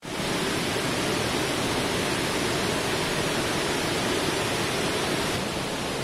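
Fast, muddy river water rushing through rapids and under a bridge: a steady, even rush of water.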